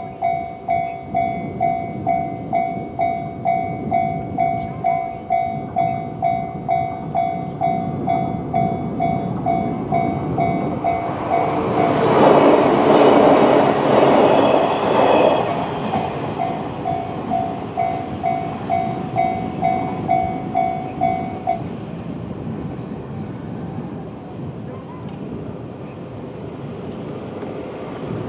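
Japanese level-crossing warning bell (the JR standard electronic tone) dinging about twice a second while a 115-series electric train passes. The train is loudest between about twelve and sixteen seconds in. The bell stops about 22 seconds in, leaving a steady hiss.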